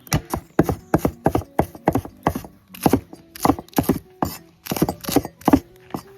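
Kitchen knife chopping vegetables, a quick, uneven run of sharp cuts, about three a second.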